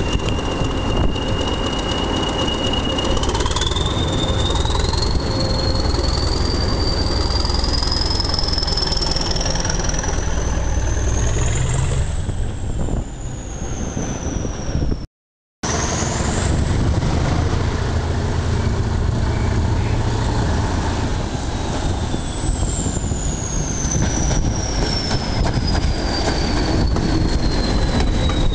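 The English Electric diesel engine of Class 20 locomotive D8188 is running under power with a loud rumble. Its turbocharger whistle climbs steadily in pitch over the first dozen seconds as the locomotive works its wagon. After a brief break about halfway, the whistle falls away again near the end as the locomotive passes.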